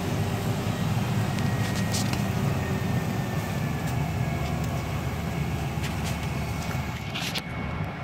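Heavy equipment engine running steadily, a low even drone with no change in speed, with a brief hiss near the end.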